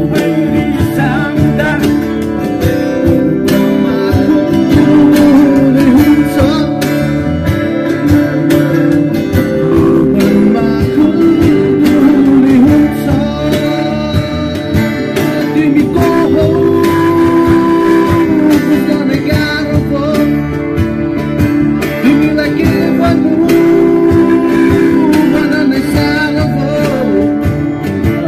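Live band playing a song: a male singer on a microphone over acoustic and electric guitars, with a steady percussion beat.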